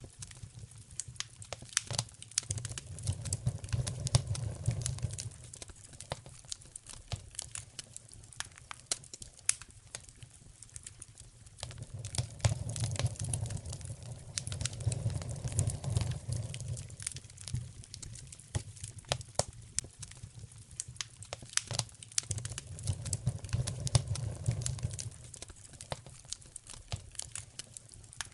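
Wood fire crackling in a fireplace, with frequent sharp pops and snaps. A low rush of flame noise swells and fades three times.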